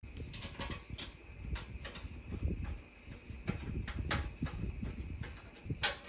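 Irregular light clicks and taps of small metal burner parts being handled and set on a Samsung gas range cooktop, about a dozen, the loudest just before the end. A steady high-pitched hum and a low rumble run underneath.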